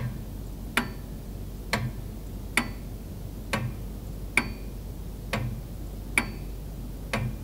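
Ticking clock sound effect: an even tick-tock, a little more than one tick a second, every other tick louder and brighter, counting off the viewer's thinking time.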